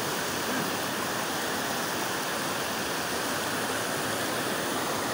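Rocky mountain river rushing over boulders in rapids: a steady hiss of fast water.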